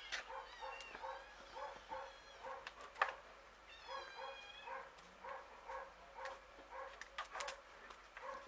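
A dog barking faintly and steadily, about three barks a second without a break, with small birds chirping over it. A single sharp knock about three seconds in is the loudest sound.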